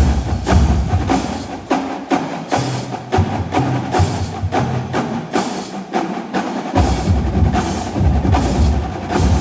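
Marching drumline playing a rhythmic passage: sharp, crisp snare and tenor strokes over pitched bass drums. For a few seconds in the middle, the bass drums step through different notes.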